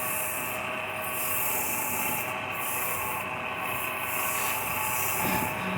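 Sandpaper held against a wooden workpiece spinning on a wood lathe, a steady rubbing hiss over the lathe's motor hum. The hiss eases off briefly about every second or so as the paper is lifted or shifted.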